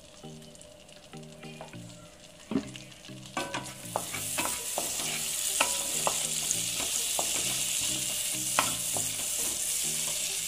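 Chopped garlic frying in melted butter in a nonstick pan: the sizzle swells up about four seconds in and then holds steady. A wooden spatula stirs it, knocking and scraping against the pan now and then.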